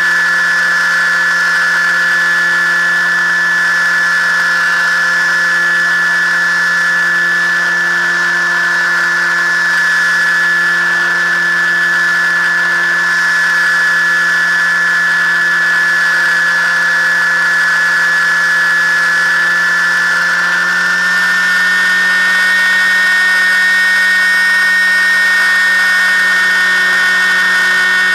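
FPV model aircraft's electric motor and propeller running steadily with a loud, even whine, heard from the onboard camera; about twenty seconds in the pitch shifts slightly as the throttle changes.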